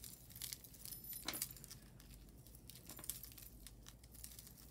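Small pieces of costume jewelry clinking and rattling faintly as they are handled, a scattering of light metal clicks, busiest about a second in.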